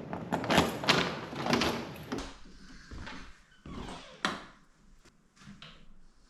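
A run of sharp knocks and clunks, quick ones in the first two seconds, then a few scattered single knocks, the sharpest about four seconds in.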